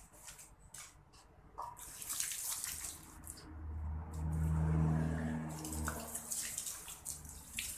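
Water from a garden hose spraying and splashing into an empty steel LPG tank through an open valve hole, flushing it out, starting about two seconds in. A louder low hum rises over the spray for a couple of seconds in the middle.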